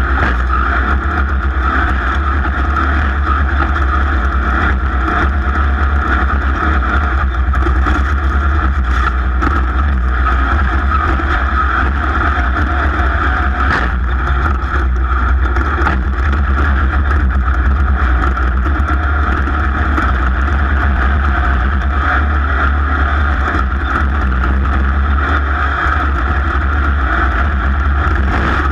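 Racing vehicle's engine running loud and steady at sustained high revs during a race lap, with no pauses or big changes in pitch.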